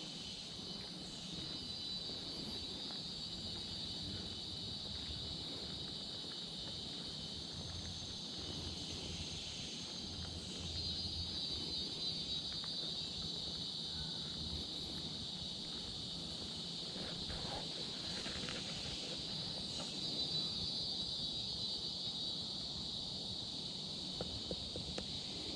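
Steady high-pitched drone of a forest insect chorus, growing a little louder about ten seconds in.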